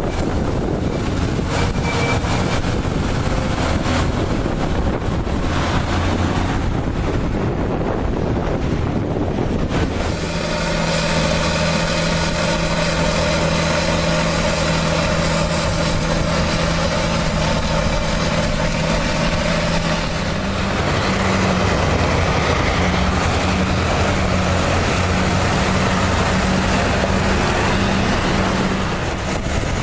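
Volvo articulated hauler's diesel engine running as it pulls a loaded tipping trailer over soft ground, mixed with wind rumbling on the microphone for the first third. After that the engine is a steady drone whose pitch steps up slightly about two-thirds of the way through.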